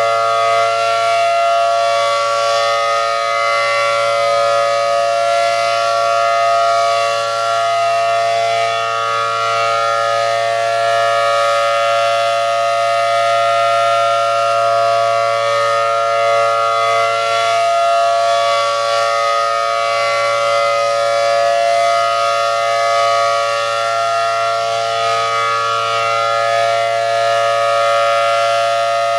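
ACA Allertor 125 outdoor warning siren sounding its steady full-alert tone. It is very loud, and its 10- and 12-port rotors give a held two-note chord that swells slightly as the directional horn rotates.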